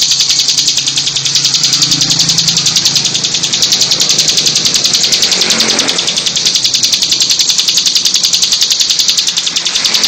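Bar-winged prinia (ciblek) singing its rapid, buzzy trill, an even run of about ten notes a second that carries on without a pause.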